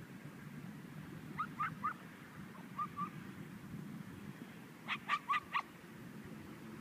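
Chinese Crested dogs yipping: three short high yips about a second and a half in, two fainter ones near three seconds, then a quick run of four louder yips about five seconds in, over a low background rumble.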